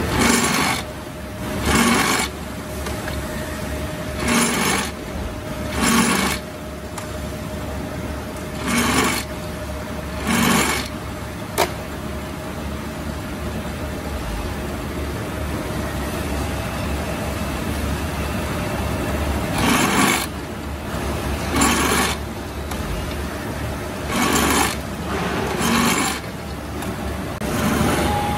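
Drill press motor humming steadily while a tap cuts threads into metal castings, heard as short loud grinding bursts, mostly in pairs, repeated several times with a pause in the middle. A single sharp click comes near the middle.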